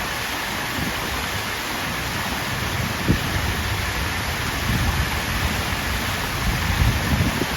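Water fountain running, a steady hiss and splash of falling water, with low thumps of wind on the microphone about three seconds in and several more near the end.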